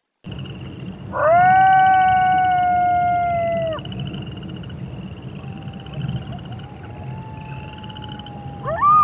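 Wolf howling: one long howl swoops up and holds, sagging slightly before it breaks off, a fainter howl follows, and a second howl rises near the end.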